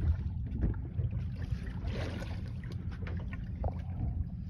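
Sea water lapping and slapping against a small boat's hull over a steady low rumble, with a brief louder hiss of water about two seconds in.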